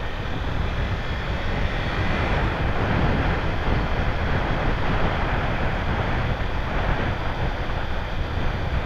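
Wind rushing steadily over the microphone of a moving motorcycle, with the Kawasaki Ninja 300's running buried in the low rumble.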